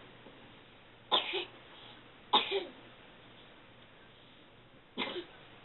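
A woman coughing three times: two short coughs a little over a second apart, then another near the end.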